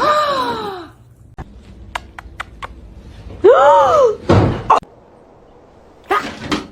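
A cat meowing twice: a falling meow right at the start and a rising-then-falling meow about three and a half seconds in. A few sharp clicks or knocks come between them, and short bursts of noise follow.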